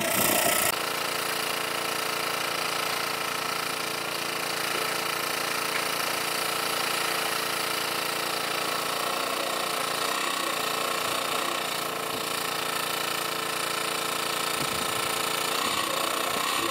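Engine of a large-capacity water pump running steadily at a constant pitch.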